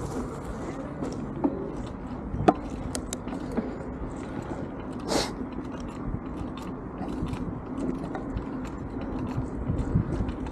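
Fat-tyre bicycle rolling along an asphalt path: a steady rumble and hum from the wide tyres, with scattered small clicks and rattles from the bike and a brief hiss about five seconds in.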